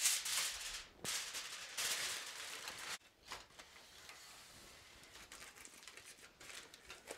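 Heavy-duty aluminum foil crinkling loudly as a sheet is laid over a roaster, stopping abruptly about three seconds in, then quieter crackling as the foil is crimped down around the roaster's rim.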